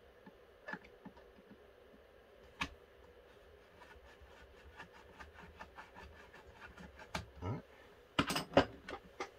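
Small metallic clicks and ticks of a screwdriver turning a trigger-housing screw in a Browning Auto-5 shotgun's steel receiver: a single sharp click, then a run of faint quick ticks, and a cluster of louder clicks near the end.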